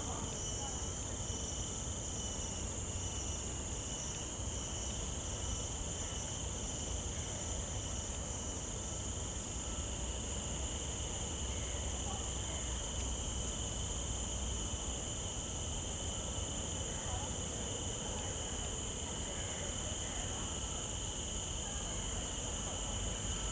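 A steady chorus of insects: a continuous high-pitched drone with a second, lower-pitched band beneath it, over a faint low rumble.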